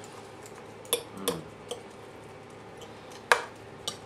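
Small bonsai hand tools (a trowel or spatula) tapping and scraping in granular bonsai soil and against the pot: a few scattered sharp clicks, the loudest a little after three seconds in.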